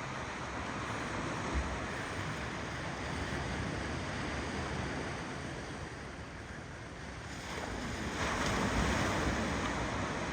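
Ocean waves rolling onto a shore in a steady wash: the surf eases off about halfway through, then a new wave breaks and swells up near the end.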